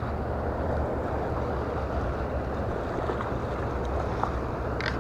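Steady low rushing noise of wind and moving water, with a few faint clicks near the end.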